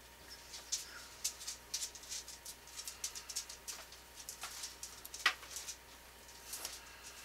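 Drawing instrument scratching on drafting paper in many short strokes along the edge of a plastic drafting triangle, with one short falling squeak about five seconds in.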